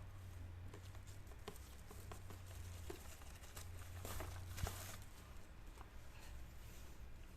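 Scattered light taps and short rustles of a keyboard box and its packaging being handled, with a sharper tap about four and a half seconds in, over a steady low hum.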